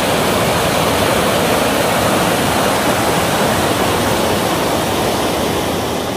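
Rushing water of the South Esk River's rapids and falls in the rocky gorge: a loud, steady rush that begins to fade near the end.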